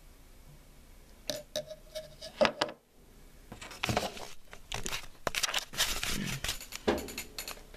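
Handling noise from hands turning a pocket knife close to the microphone: a few light clicks, then several seconds of irregular rustling and rubbing.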